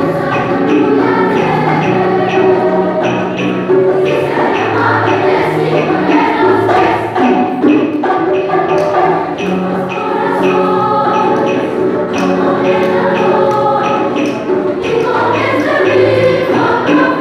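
Children's choir singing together, a held, moving melody over a steady rhythmic beat.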